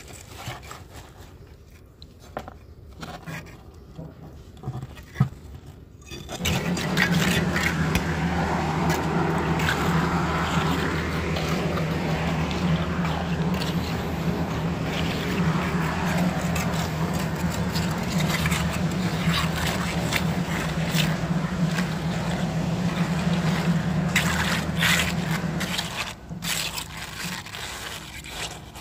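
A steel trowel scraping and tapping wet concrete, with scattered clicks, for the first few seconds. About six seconds in, a steady engine or motor hum starts and runs for some twenty seconds under continued scraping, then drops away near the end.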